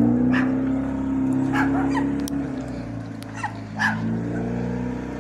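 Volkswagen T3 van's engine running as the van pulls away, its sound slowly fading and dropping a little in pitch. A dog barks about five times over it.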